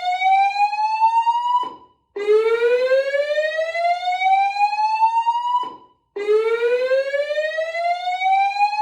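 Voice-evacuation fire alarm sounding its slow-whoop evacuation tone: a loud, rising sweep from low to high pitch lasting about three and a half seconds. It breaks off briefly and starts again from the bottom, twice.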